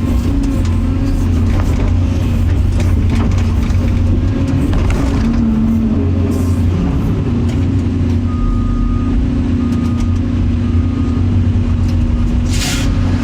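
Excavator's diesel engine running steadily under working load, a low continuous drone. A few short high beeps sound in a row past the middle, and a brief loud hiss comes near the end.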